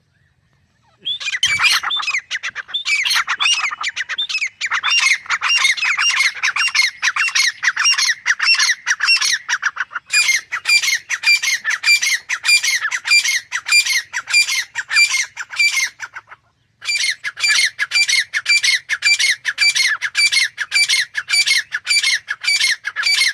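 Grey francolin calling in a rapid, harsh series of notes, about three to four a second, starting about a second in and breaking off for half a second about two-thirds through before going on.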